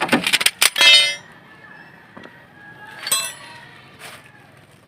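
Metal tools and parts clinking and clattering: a quick run of sharp clicks and clanks in the first second, one ringing briefly, then a single ringing metallic clink about three seconds in.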